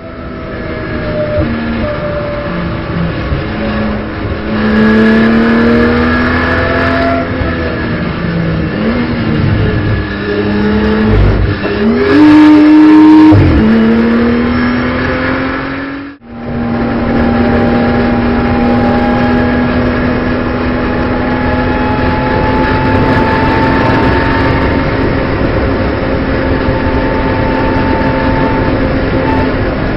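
Onboard sound of a BMW M240i Racing Cup car's turbocharged straight-six under racing load. Its revs rise and fall through gear changes and drop sharply and recover about eleven to thirteen seconds in. After a brief cut about halfway, the engine holds one long pull with its pitch slowly climbing.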